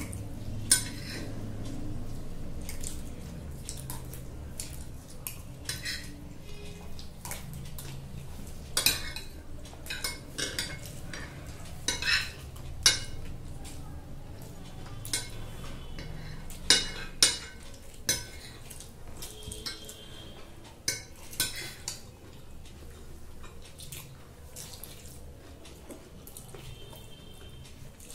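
Metal forks and spoons clinking and scraping against glass plates as two people eat noodles, in irregular, scattered clinks, some ringing briefly, over a low steady hum.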